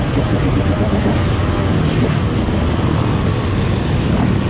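Dirt bike engines running in a steady, loud rumble mixed with road noise.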